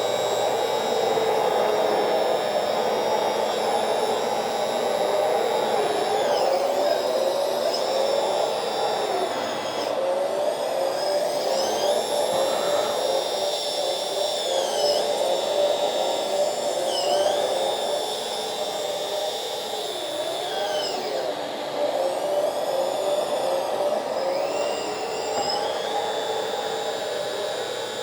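RC hydraulic excavator's electric hydraulic pump and cooling fan running steadily with a high whine. The whine sags in pitch and recovers several times as the arm and bucket are worked under load.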